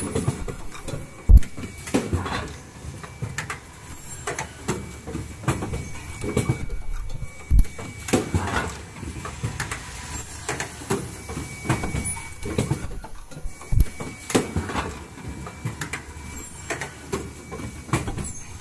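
Automatic N95 cup mask making machine running: a steady clatter of clicks and knocks from its pneumatic mechanisms, with a heavier thud about every six seconds as the machine cycles.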